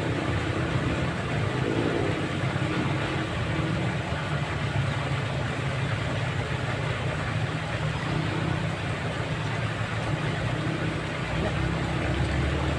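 Steady engine and traffic rumble with a low hum, a constant background that neither rises nor falls.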